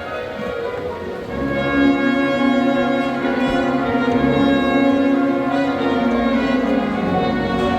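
Sierra Mixe philharmonic wind band playing sustained brass and woodwind chords, swelling louder about a second and a half in.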